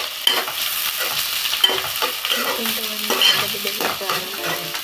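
Chopped onions sizzling as they fry in hot oil in a pan, with a spoon stirring and scraping against the pan in irregular clicks.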